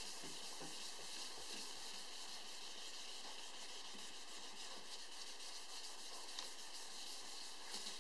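Faint rubbing strokes of a sanding block wet-sanding urethane clear coat by hand with 600-grit paper and soapy water, over a steady hiss. This is the leveling stage, knocking down orange peel in the paint.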